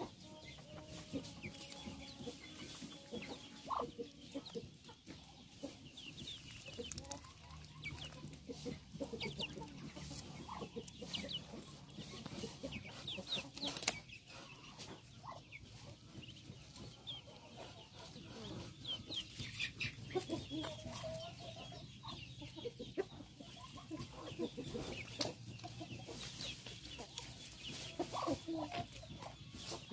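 Chickens clucking on and off, mixed with many short high peeps from Muscovy ducklings foraging in mud.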